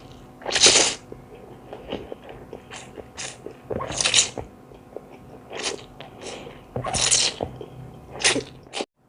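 Close-miked eating sounds: crunching and chewing of a spicy noodle salad, broken by about nine sharp hissing bursts of slurping or sucked-in breath, the loudest about a second in, around four seconds and around seven seconds.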